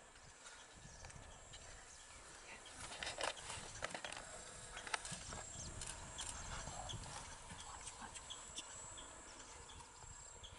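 Faint outdoor ambience: scattered soft clicks and knocks, busiest a few seconds in, over a low rumble, with a high chirp repeating a few times a second in the second half.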